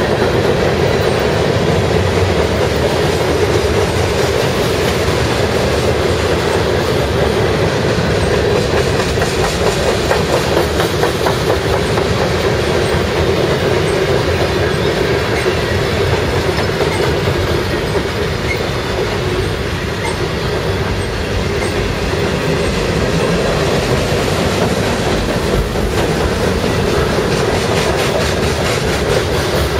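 A mixed freight train's cars rolling past at close range: a steady, loud rumble of steel wheels on the rails, with a running clatter of wheel clicks. The sound eases slightly about twenty seconds in.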